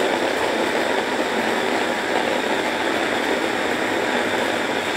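Kenwood blender running steadily, its blades churning dried dates, water and vanilla into a thick date caramel paste.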